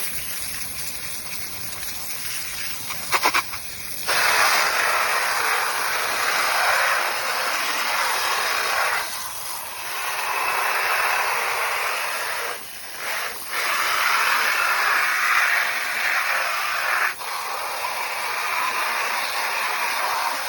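Strong spray of water from a hose hitting a dirty fan's grille and blades and washing the dust off. It comes in several long spells with brief breaks, with a few quick clicks about three seconds in.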